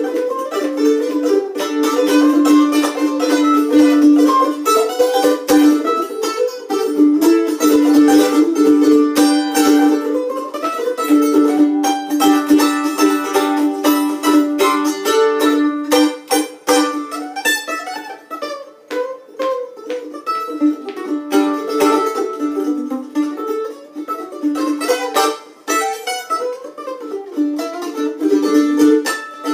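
Mandolin played with a pick: a quick, continuous run of picked notes that keeps returning to one strong low note.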